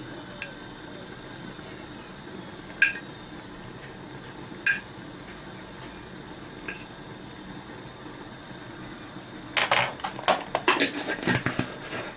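A metal teaspoon clinking against dishes as spices are measured out: a few single clinks spread over the first seven seconds, then a quick run of clattering and rattling from about nine and a half seconds in. A faint steady hiss runs underneath.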